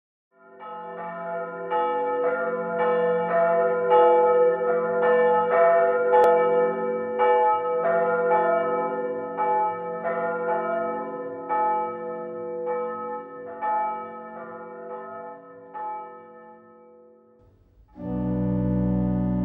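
Church bells ringing, a long run of struck strokes that grow fainter and die away. Near the end a held organ chord starts.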